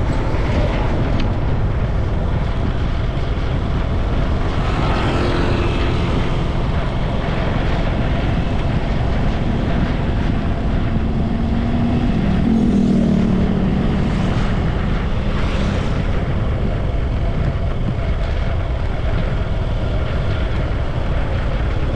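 Steady rumble of a moving vehicle, heavy at the low end, with a faint engine tone that swells briefly about twelve to fourteen seconds in.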